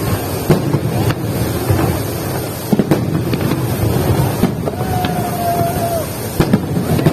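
Fireworks display: scattered sharp bangs over a steady low rumble, with a held whistle-like tone for about a second midway.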